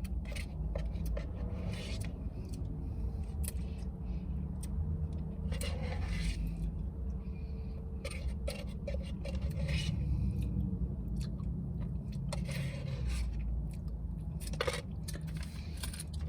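Spoon scraping and clicking against the inside of a Dairy Queen Blizzard cup in irregular strokes, digging out the last of the ice cream at the bottom. A steady low hum runs underneath.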